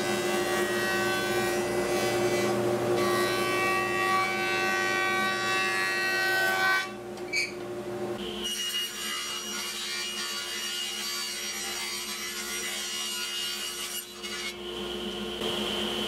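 Jointer running while the edge of a curved laminated wood piece is fed over its cutterhead, a steady machine hum under the rasp of the wood being cut, which stops about seven seconds in. After that a different steady machine drone continues.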